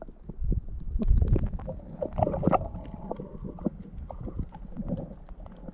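Underwater sound picked up by a submerged camera in shallow sea water: a low, steady rumble of moving water with many sharp clicks and knocks scattered through it.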